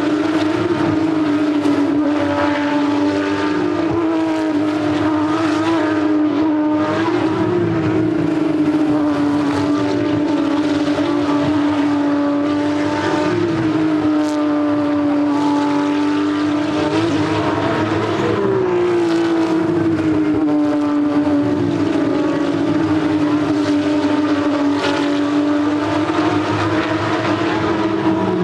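Porsche 911 GT3 Cup race cars' flat-six engines running at racing speed around the circuit, several at once. The pitch rises and drops again and again as they work through the gears.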